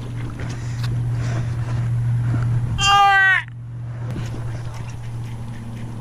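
A person's loud, wavering cry or whoop about three seconds in, lasting half a second, over a steady low hum.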